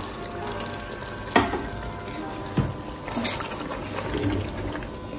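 Wooden spoon stirring thick coconut curry in a metal pot, the liquid sloshing, with a couple of sharp knocks about a second apart.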